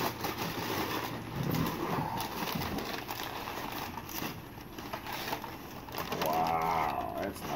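Crinkly packing paper rustling and crackling as an item wrapped in it is pulled out of a cardboard box and unwrapped, with cardboard scuffing against cardboard. A short wavering pitched sound comes near the end.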